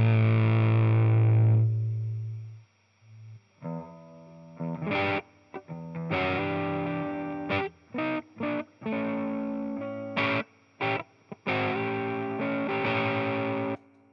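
Electric guitar played through a Nux Plexi Crunch, a Marshall-style overdrive pedal, giving a crunchy distorted tone. A held chord rings out and fades over the first two seconds. After a short pause comes a riff of chords with abrupt stops and brief gaps.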